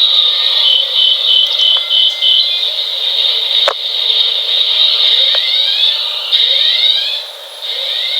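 Very loud mock EAS (Emergency Alert System) alarm: a steady, shrill high-pitched tone with a string of short beeps in the first couple of seconds. A sharp click comes about three and a half seconds in, and several rising sweeps follow in the second half.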